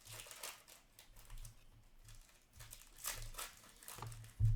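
Paper and plastic rustling and crinkling as hockey trading cards and pack wrappers are handled, in short repeated bursts, with a soft bump near the end.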